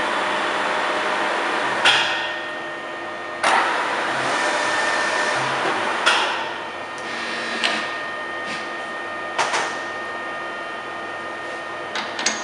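Deckel FP4 NC milling machine running, a steady mechanical whir with thin steady tones. It is broken by sharp sudden knocks or surges about two, three and a half, six and nine and a half seconds in, and a few quick clicks near the end.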